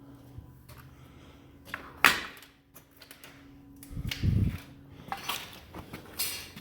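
Knocks and clunks of something being handled: a sharp knock about two seconds in, a dull thump around four seconds and a few lighter clicks near the end, over a faint steady hum.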